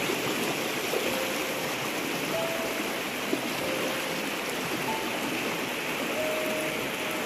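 Knee-deep floodwater running fast down a street, a steady rushing like a stream. A few faint short tones sound over it, and there is one small click about three seconds in.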